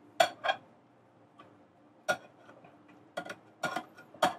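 Kitchen utensils clinking against dishware: about eight sharp, irregular clicks and clinks, two close together near the start and a cluster in the last second and a half.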